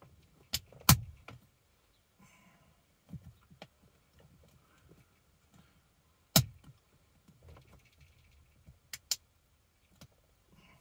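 Sharp plastic clicks and knocks from a phone holder being pressed and fitted onto a car dashboard, with faint handling rustle between. Two clicks come just after the start, the loudest about six seconds in, and a quick pair near the end.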